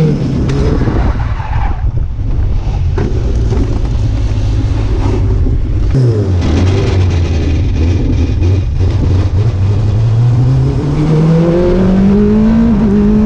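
Formula 3 single-seater race car's engine heard onboard: the revs drop right at the start and run low and rough for a few seconds, then after an abrupt break the engine picks up and its revs climb steadily near the end as the car accelerates.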